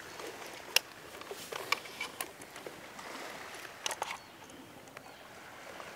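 Scattered sharp clicks and knocks of plastic gear being handled in a hard-shell carrying case, as a tether reel and controller are lifted out of its foam inserts.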